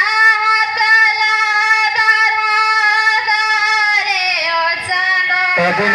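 A female singer's amplified solo voice, singing into a microphone. She holds one long high note for about four seconds, then lets the pitch slide down and waver before trailing off near the end.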